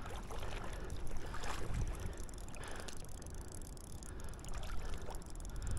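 River water lapping and swishing close by, over a low steady rumble.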